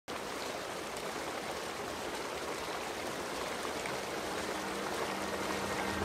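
Steady rush of flowing water. Soft, sustained music notes fade in faintly over the last two seconds.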